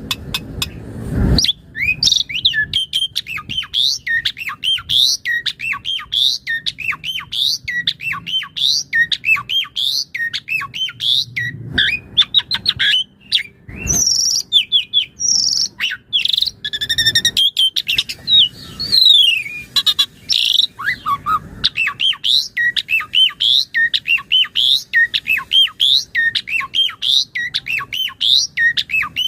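Asian pied starling (jalak suren) in full song: a fast, unbroken stream of varied chirps, whistles and harsh squawky notes, several a second, with a few downward-sweeping whistles in the middle, as the bird runs through its mimicked repertoire.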